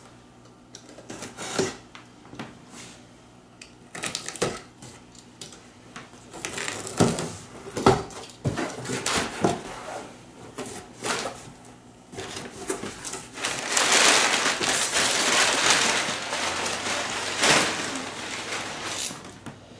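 A cardboard shipping carton being opened: a utility knife cutting through the cardboard, flaps being pulled back and packing paper handled, with scattered knocks and scrapes. About two-thirds of the way in comes a few seconds of louder continuous rustling.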